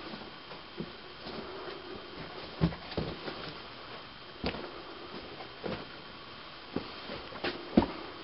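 Irregular scattered knocks and scuffs over a steady hiss, the sharpest knock coming near the end.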